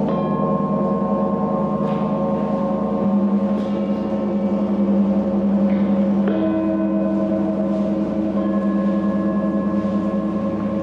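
Large hanging gong played with a mallet: a dense, sustained ring of many overlapping tones, with a fresh stroke about every two seconds adding new pitches.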